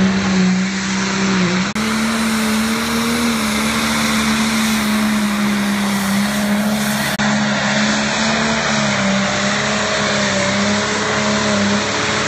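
Diesel pulling tractor running at full throttle while it drags the weight sled, a loud steady engine note held at high revs. The background hiss changes abruptly twice.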